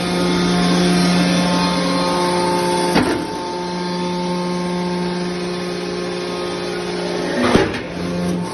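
Hydraulic power unit of a semi-automatic metal baler running with a steady hum, its tone shifting slightly about three seconds in. There is a sharp knock about three seconds in and a louder one near the end.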